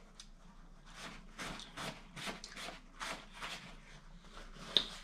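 A paper napkin being unfolded and handled: quiet, even rustling, about two or three soft strokes a second, with a short sharp tick near the end.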